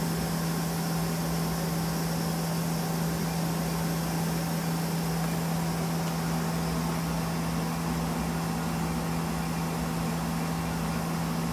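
Okuma Spaceturn LB3000-EXMYC CNC lathe powered up and running, a steady machine hum with one low tone over an even hiss.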